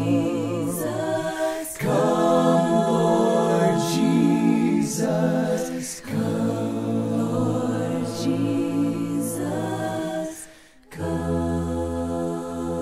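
The closing passage of a recorded worship song: voices in harmony holding long notes with vibrato and no words, phrase after phrase, with a short break near the end before one last held chord.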